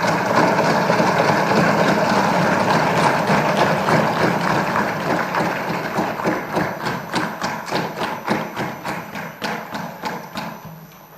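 Legislators in an assembly chamber applauding loudly, a dense din of claps and thumps that thins into separate strikes over the second half and dies away near the end.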